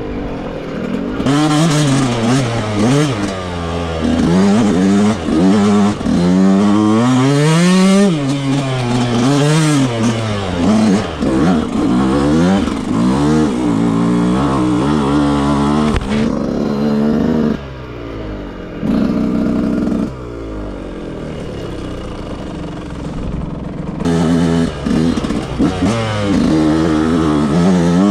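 Yamaha YZ125 single-cylinder two-stroke dirt bike on its stock exhaust, ridden hard off-road: the engine revs up and drops back over and over as the throttle is worked through the gears. About two-thirds of the way through it settles to a lower, steadier note for several seconds before revving hard again.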